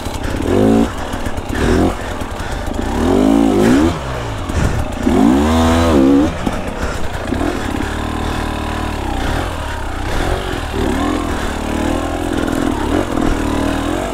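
Two-stroke enduro dirt bike engine revving hard in repeated bursts, its pitch climbing and falling several times in the first six seconds. After that it holds a steadier, wavering note as the rear wheel spins for grip on a loose, rooty climb.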